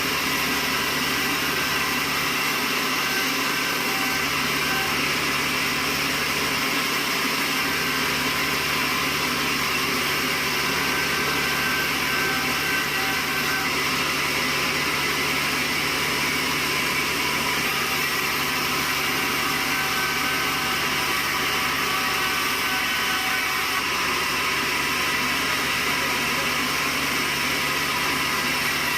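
Steady, unbroken running noise of sawmill machinery, with a constant low hum under it and no clear cuts or impacts.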